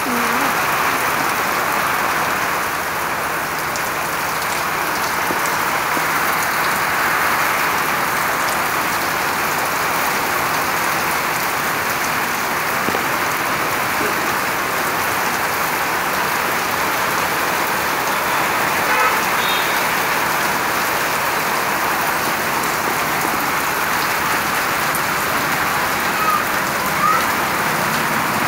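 Heavy rain pouring steadily onto wet ground.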